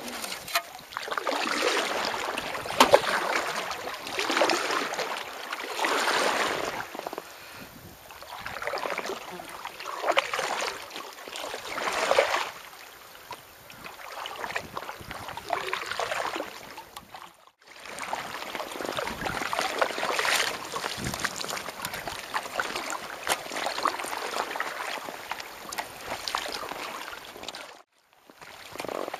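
Kayak paddle strokes splashing in lake water, a swell of splashing about every two seconds, with water sloshing along the hull. The sound breaks off briefly twice.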